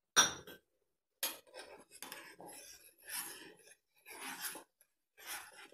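A sharp metallic clink, then a long-handled steel ladle scraping and clinking against a metal kadai in several short strokes as it stirs sugar syrup.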